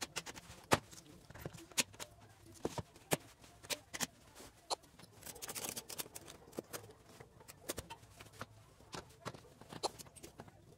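Clamps being set and tightened on a glued-up solid-wood tabletop: scattered sharp clicks and knocks of the clamp jaws and bars against the wood. About five to six seconds in there is a denser run of rapid clicking as a ratchet strap is cranked.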